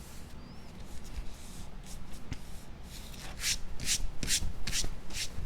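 Fingers rubbing and smoothing a glued piece of cardstock down onto a paper card, with soft handling rustles and then about five quick brushing strokes in the second half.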